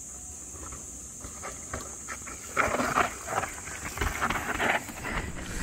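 Mountain bike rolling down a dirt trail, with rough, irregular tyre and frame clatter that grows louder from about two and a half seconds in, over a steady high-pitched hiss.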